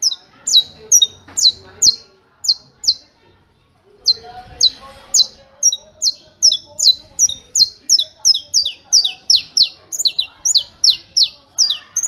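Saffron finch (canário-da-terra) singing its 'martelo' song: a long string of sharp, high notes, each sweeping downward, repeated about three times a second. The string breaks off for about a second around a quarter of the way in, then resumes and runs on steadily.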